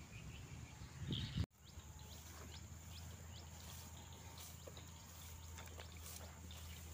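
Faint outdoor ambience: small birds give a string of short, high chirps over a low steady hum. In the first second and a half there is a brief rustle of handled gear, which cuts off abruptly at an edit.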